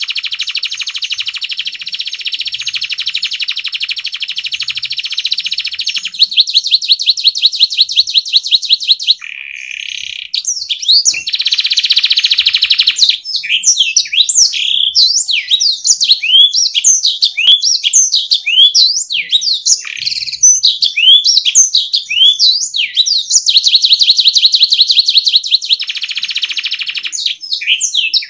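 Domestic canary singing a long song made of trills, each a fast run of one repeated note. Near the start a slower, pulsed trill comes in at about seven notes a second. Through the middle the song breaks into varied rising and falling whistled notes, and it returns to steady trills near the end.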